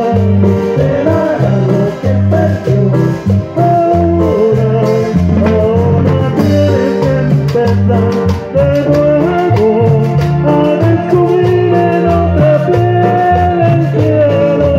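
Live band music played through a PA: a male lead singer singing into a microphone over electric bass, keyboards and a steady beat.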